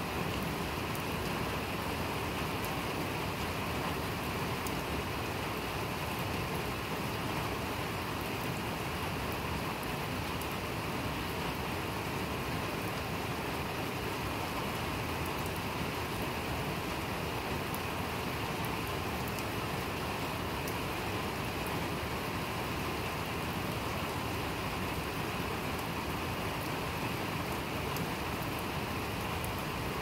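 Steady rain falling on a paver patio and lawn: an even, constant hiss with faint ticks of individual drops.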